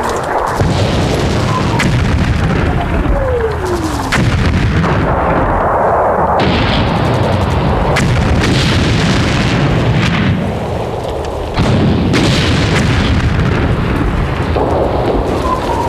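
Artillery bombardment: heavy shell explosions going off one after another in a continuous rumble. A falling whistle of an incoming shell comes down about three seconds in, and another starts near the end.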